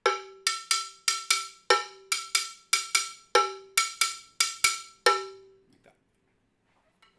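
Handheld cowbell struck with the butt end of a drumstick, playing a short repeating rhythm that mixes the bell's low sound and its high sound near the mouth edge. The pattern goes round about three times, the loudest strokes on the low tone, and stops about five seconds in.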